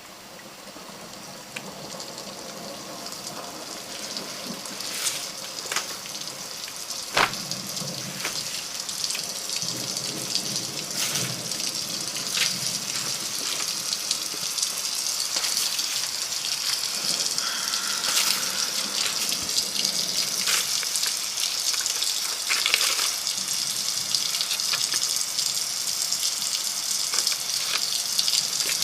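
Recorded rain sound played from a computer: a steady hiss of rainfall that grows gradually louder, with scattered sharp drop clicks.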